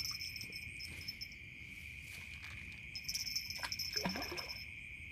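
Night insects, crickets among them, chirring steadily, with a higher trill that comes and goes in bouts.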